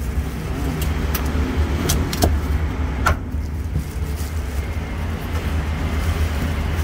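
Cleaver chopping roast pork belly on a chopping block: a handful of sharp chops in the first three seconds, the last the loudest, over a steady low rumble.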